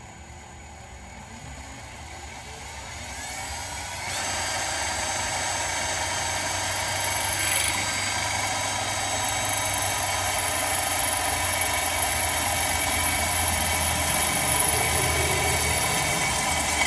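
Electric drill winding up over the first few seconds, then running steadily at full speed with an even whine while boring a pilot hole into a stainless steel handrail.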